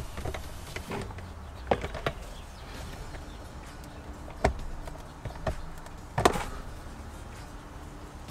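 Light knocks and taps of a plastic-framed cabin air filter being handled and pushed down into its housing. There are about six, spread unevenly, and the loudest comes a little past six seconds in.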